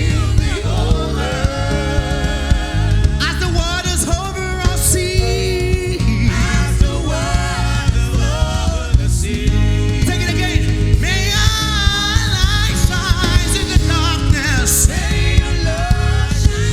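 Gospel worship song: a voice singing with vibrato over a band with a steady bass and a regular beat.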